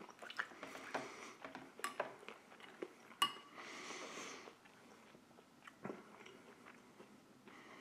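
A person chewing a mouthful of rehydrated Waldorf salad with nuts, quietly, with small crunches and mouth clicks, and two sharper clicks about two and three seconds in.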